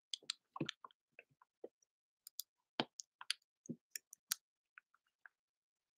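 Uneven clicking of keys as someone types, about twenty separate clicks in short runs with small gaps, stopping shortly before the end.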